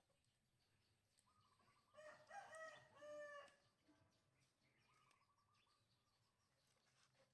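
A rooster crowing once, faintly, about two seconds in: a drawn-out crow of about a second and a half in two parts.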